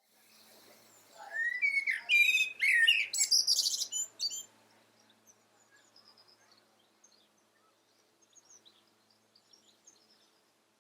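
Blackbird singing one loud phrase of warbled, gliding notes that ends in a high twitter, starting about a second in and stopping after about three and a half seconds; faint high bird chirps follow.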